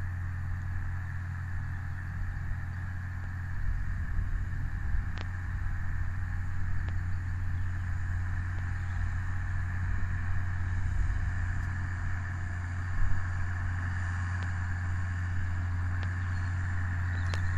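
Massey Ferguson 6465 tractor and Vicon RF 2235 round baler working along a windrow: a steady low engine drone with a steady higher machinery hum, growing slightly louder as the outfit approaches.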